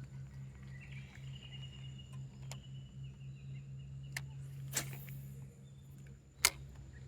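Steady low hum with a few sharp clicks and a short swish; the loudest click comes near the end.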